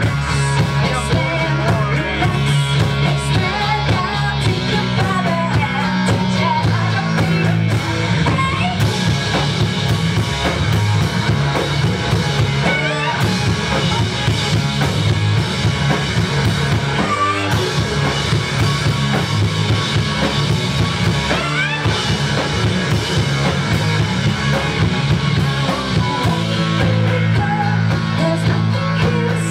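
Live rock band playing: electric bass guitar and a drum kit, with singing over them.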